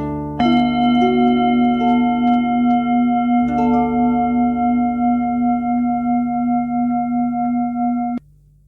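Relaxation music: a struck, bell-like ringing tone begins about half a second in and sustains with a slow wavering pulse, over a low drone and a few soft plucked notes. Everything cuts off abruptly near the end.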